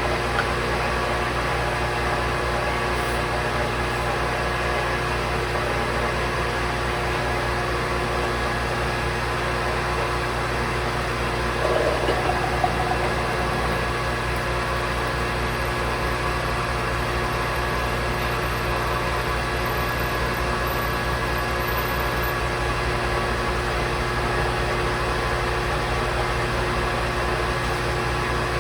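Steady hum of a running shop machine: many fixed tones over an even noise, unchanging throughout, with a brief stir of extra sound about twelve seconds in.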